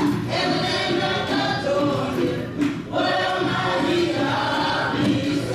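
Gospel choir singing with music, with a short break in the sound a little past halfway.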